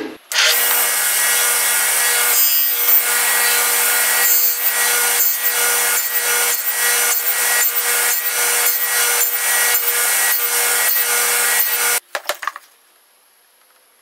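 Power saw cutting a notch into a plywood piece: a steady motor tone under the cutting noise, pulsing about twice a second, then it stops abruptly about twelve seconds in.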